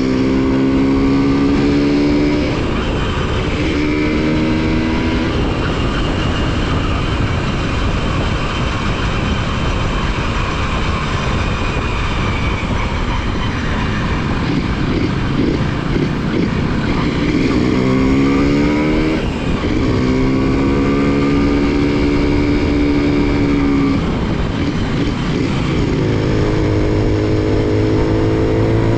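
Honda CDI-100's 100cc engine and exhaust running loudly, its note climbing and dropping several times as it is revved and eased off.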